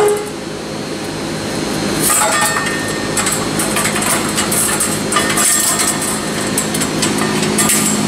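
Steel bandsaw blade being handled on a band resaw's wheel: clattering and scraping of the metal band in bursts, about two seconds in and again near the end, over a steady hum.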